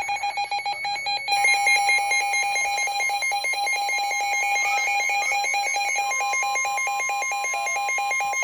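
Weather radio alert receiver sounding its warning alarm, a rapid pulsing electronic beep, announcing an incoming tornado warning. About six seconds in, the steady NOAA Weather Radio 1050 Hz warning tone joins it.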